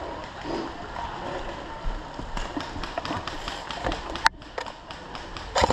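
Scattered light taps and rustling of movement, with one sharp click about four seconds in; right at the end a loud burst of rapid automatic fire from an airsoft gun begins.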